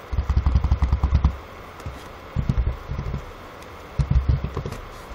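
Computer keyboard typing picked up close to the microphone: three bursts of rapid, dull keystroke thumps with faint clicks.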